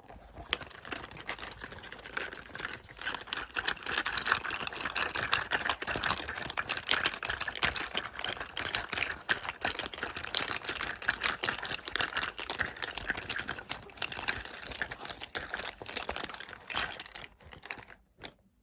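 Rapid fingernail tapping on cosmetic product containers, a dense stream of small clicks that stops shortly before the end.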